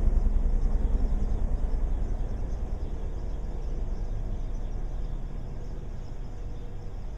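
Bell helicopter's rotor beating fast and low, fading steadily as the helicopter moves away.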